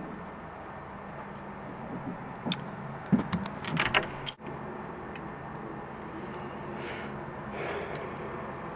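A few light metallic clicks and clinks, clustered between about two and four seconds in, over steady background noise.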